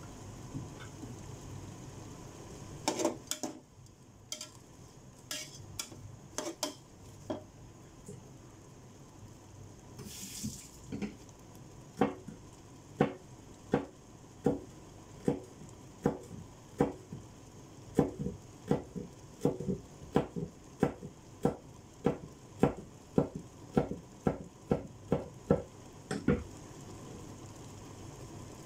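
Kitchen knife chopping a green chili on a wooden cutting board: a steady run of sharp knocks, about two a second, through the second half, after a few scattered knocks earlier on.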